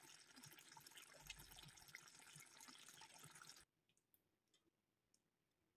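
Near silence: a faint hiss with a few soft ticks, dropping even quieter about two-thirds of the way through.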